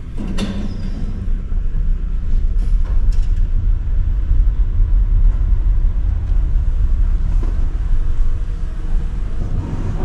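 Steady low rumble of a small car's engine and tyres, heard inside the cabin while it is driven slowly.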